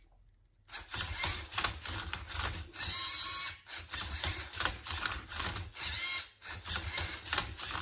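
LEGO Mindstorms EV3 MindCuber robot solving a Rubik's cube: its motors whir in short rising whines among repeated plastic clicks as the cube is tipped and its layers turned. It starts after a brief gap of near silence.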